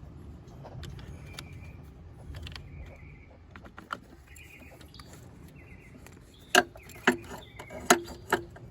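Metal clinking of a wrench and a car battery's negative cable clamp as the clamp is loosened and worked off its post: four or five sharp clinks in the last third, over a low steady rumble.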